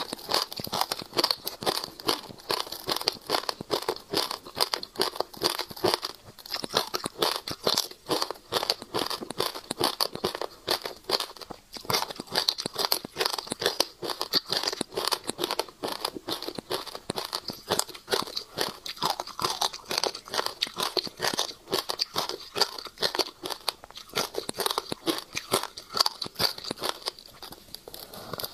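Passion fruit seeds crunching and crackling close to a clip-on microphone: a dense, rapid run of small sharp clicks, like seeds being chewed and handled.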